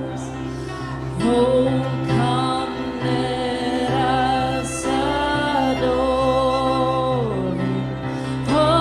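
Worship music: sustained held chords with a voice singing long, gliding notes that come in about a second in, without clear words.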